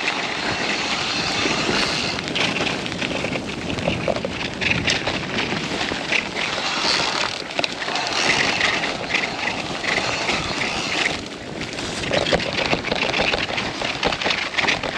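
Mountain bike ridden along a rough, muddy trail: a steady rush of tyre and trail noise with many small knocks and rattles from the bike.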